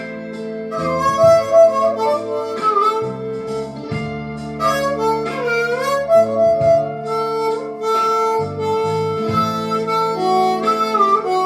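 Blues harmonica playing held and bent notes over a guitar accompaniment.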